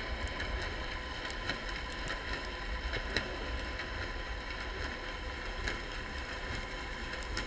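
Underwater sound picked up by a camera in a dive housing: a steady, muffled low rumble with a faint constant hum and many faint scattered clicks.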